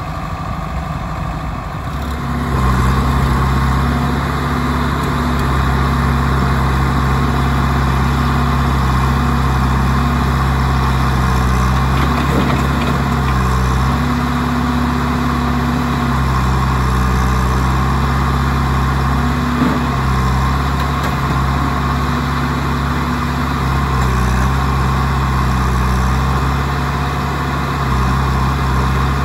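Diesel engines of a JCB 3DX backhoe loader and a farm tractor running close together. The sound gets louder about two seconds in, and the engine pitch shifts up and down several times as the throttle changes.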